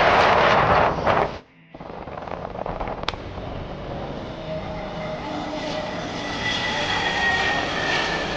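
Jet airliner engines, loud and rushing, cut off abruptly about a second and a half in; then a quieter, steady jet engine sound with faint whining tones.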